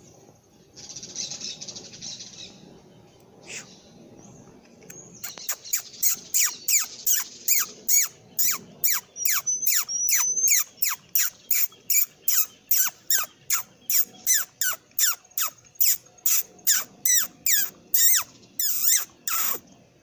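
Black-tufted marmoset calling: a long series of sharp, high-pitched chirps, each sliding quickly down in pitch, repeated about two to three times a second and starting about five seconds in.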